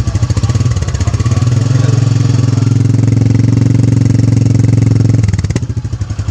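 Royal Enfield Meteor 350's single-cylinder engine running with a steady pulsing exhaust beat; about a second and a half in it swells and holds, then eases back near the end.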